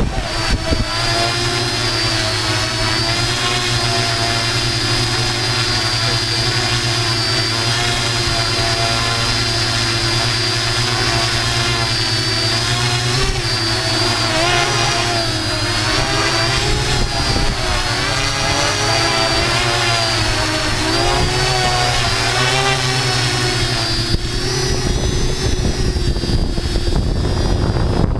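Multirotor camera drone's electric motors and propellers whining steadily, heard up close from the camera it carries. The pitch wavers up and down through the middle as the drone climbs and manoeuvres, then settles again near the end.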